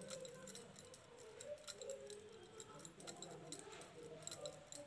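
Faint, irregular light clicks of metal knitting needles tapping and sliding against each other as stitches are worked by hand.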